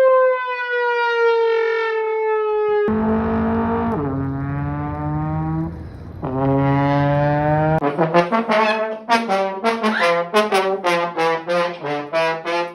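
Trombone-like brass notes. First comes one long, slowly falling note, then two lower notes that each sag in pitch. From about eight seconds in, a quick run of short notes follows at about three or four a second.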